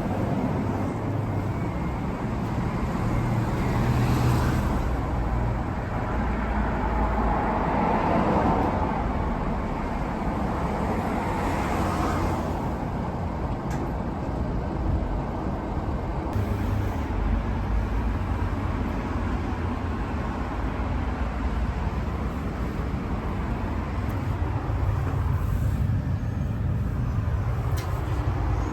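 Road traffic: a steady low rumble, with vehicles swelling past several times.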